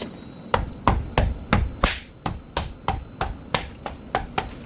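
Hammer striking hard and repeatedly in an impact test of bubble wrap coated with foaming urethane paint: a quick run of sharp knocks, about three or four a second, some louder than others.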